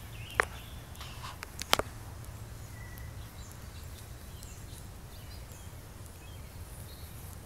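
Outdoor field ambience: a steady low rumble with faint bird chirps, broken by two sharp clicks in the first two seconds.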